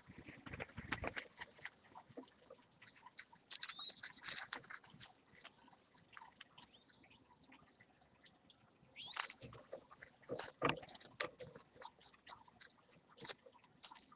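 Mourning doves moving on a twig nest in a hanging basket: scratchy clicks and rustles of feet and feathers against the nest material, busiest about a second in and again from about nine seconds. A few short, high rising chirps come through between them.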